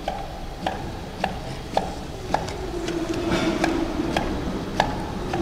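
Automatic paging labeling machine for cards and hang tags running, with a sharp click at an even pace a little under twice a second over a steady motor hum. The hum grows louder about halfway through.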